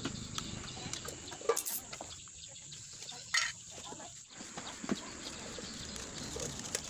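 Tin paint cans being handled on a concrete floor: a few light clicks and knocks over a quiet background, with one louder short sound about three and a half seconds in.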